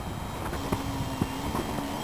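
Electric motor and propeller of a 40-inch 3DHS Edge 540 aerobatic RC plane running at a steady pitch, over wind rumble on the microphone with a few sharp pops.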